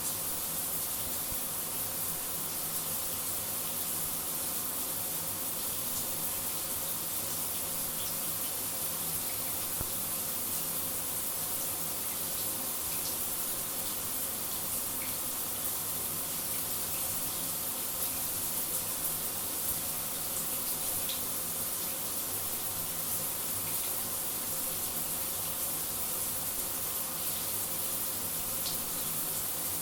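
Shower running steadily: an even hiss of falling water spray, with a few faint ticks of droplets.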